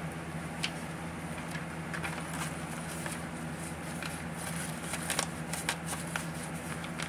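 Paper dollar bills and a clear plastic binder pocket being handled: scattered soft crinkles and taps over a steady low hum.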